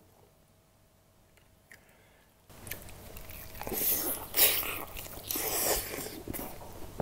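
A bite into a sauce-coated fried chicken drumstick, with the coating crunching and then chewing close to the microphone. It starts a couple of seconds in and is loudest at the bite, about four and a half seconds in.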